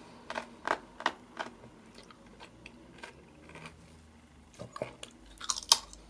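Whole-grain rye chip being bitten and chewed: a quick run of sharp crunches in the first second and a half, a quieter stretch of chewing, then another cluster of louder crunches near the end.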